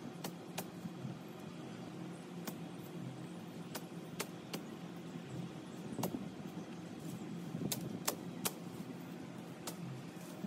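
Weeds and vines being pulled up and cut by hand: about ten sharp, irregular snaps and cracks of breaking stems, over a steady low hum.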